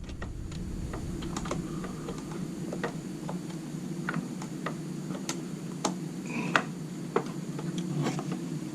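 Scattered small clicks and taps of hands handling parts inside a desktop computer case, irregular and unevenly spaced, over a steady low hum.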